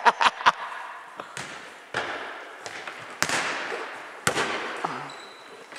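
A football kicked and bouncing on a sports hall's wooden floor: three loud, sharp thuds about a second apart, each with a long echo in the large hall, among fainter taps.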